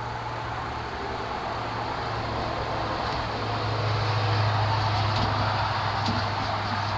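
Steady mechanical hum with an even rushing noise, like a motor or fan running, growing a little louder about halfway through.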